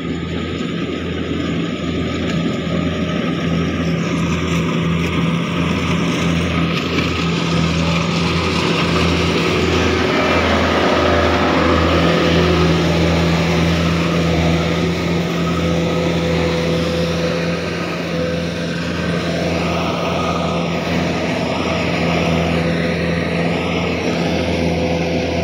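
Rice combine harvester's engine running steadily, a deep drone with a pulsing low throb that grows a little louder after the first couple of seconds.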